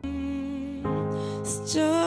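Slow, soft music of held chords, with a chord change about a second in and a wavering held note entering near the end.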